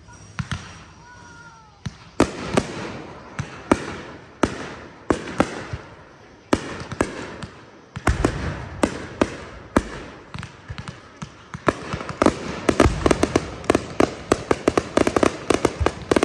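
A fireworks display: shells bursting in scattered sharp bangs with a few deep booms. The bangs come thicker and faster in the last few seconds, into a rapid crackling volley.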